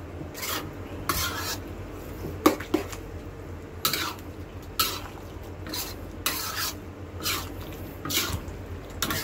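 A spatula stirring and scraping a thick tomato-sauce pork menudo stew against the side of a black wok, in regular strokes of about one a second.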